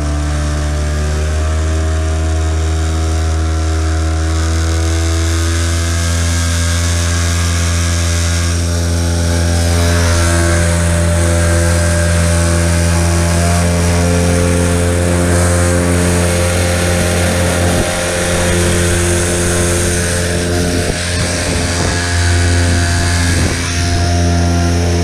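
Hangkai 6 hp two-stroke outboard motor running steadily, a new motor still being broken in. About nine seconds in it grows louder as the boat picks up speed, with a stronger hiss of rushing water.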